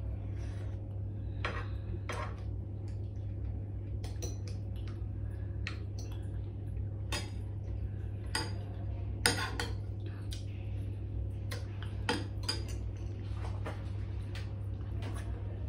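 Metal spoon and fork clinking and scraping against ceramic bowls as food is scooped up: a string of scattered clinks, the loudest about nine seconds in, over a steady low hum.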